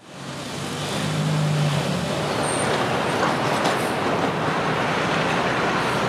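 Steady city street traffic noise, fading in from silence over the first half-second.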